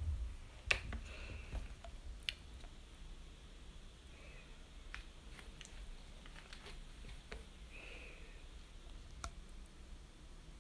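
Faint rustling and scattered sharp clicks from a small Pomeranian being handled and then moving onto a plastic pee-pad tray in a wire playpen. The sharpest click comes just under a second in.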